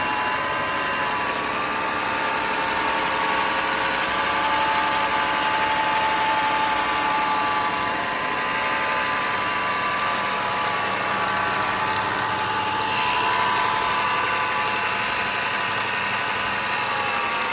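2010 BMW 4.4-litre twin-turbo V8 running steadily, with a whine over the engine noise and a noisy upper end; the seller lists it as having a bad turbo. Near the end the whine falls in pitch.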